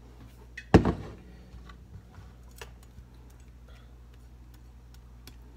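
Kitchen things being handled on a counter: one hard knock about a second in, as of something set down firmly, then scattered light clicks and taps.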